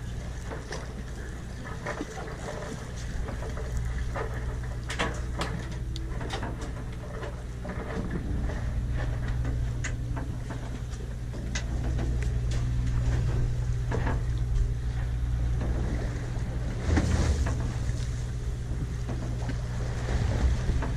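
Fishing boat's engine running with a steady low hum, under wind and water noise, scattered small clicks and knocks, and a brief rush of noise late on.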